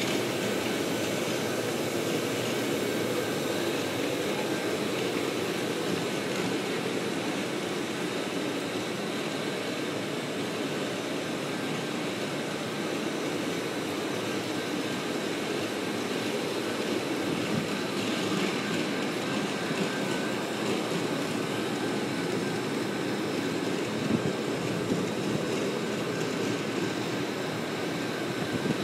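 HTC concrete floor grinder running steadily, its grinding head turning on a concrete slab during polished-concrete grinding.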